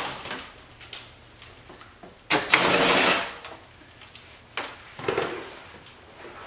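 Cordless drill boring a small pilot hole through a Corvette's rear bumper: a burst of drilling about a second long a little past two seconds in, then a second, shorter burst about five seconds in.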